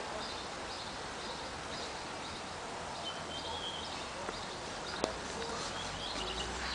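Birds chirping over a steady hiss of outdoor background noise, with one longer whistled note about three seconds in and a short click a couple of seconds later.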